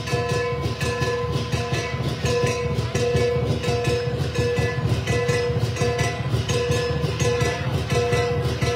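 Lion dance percussion music: fast, steady drumming with crashing cymbals and a ringing metallic tone that keeps returning throughout.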